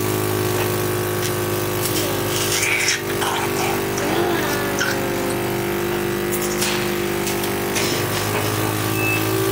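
Portable medical suction machine running with a steady motor hum, used to suction a child's mouth.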